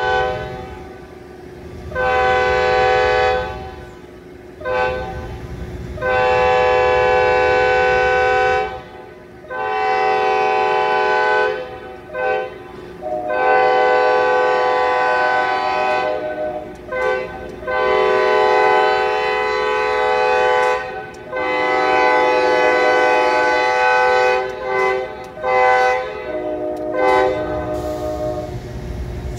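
Diesel locomotive's five-chime K5LA air horn sounding a long series of blasts, several long ones of two to three seconds mixed with short toots, with a low train rumble under it at the start and near the end. The horn is fouled, its chord not sounding cleanly.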